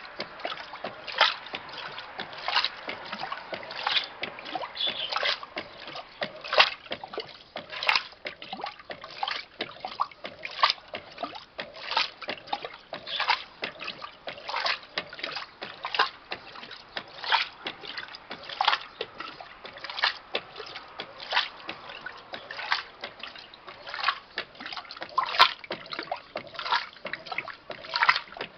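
Electrolux LTC07 top-loading washing machine agitating a load of bedding in water: the water and heavy fabric slosh and splash in repeated surges about once a second.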